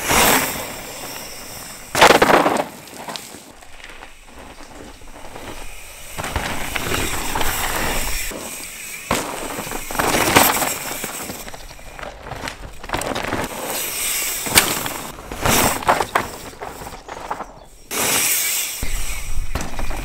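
Mountain bikes ridden fast down a dry dirt trail past the microphone: repeated passes of knobby tyres crunching and skidding over dirt and pine needles, with the bikes rattling. Several loud passes, the loudest about two seconds in and near the middle.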